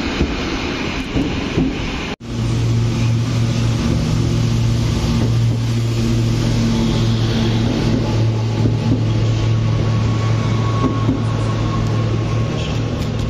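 Regional passenger trains moving past close to a station platform: running and wheel-on-rail noise. The sound cuts out abruptly about two seconds in and resumes with a second train's steady low drone as it passes.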